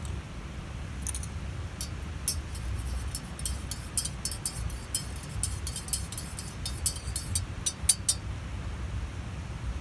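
Metal teaspoon stirring tea in an enamel mug, clinking against the mug in quick, irregular taps that stop a little before the end, over a steady low rumble.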